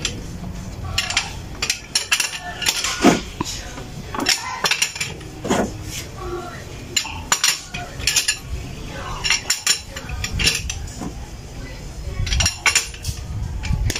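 Metal hand tools and parts clinking and clanking against each other, a string of irregular sharp metallic knocks during brake and wheel reassembly work.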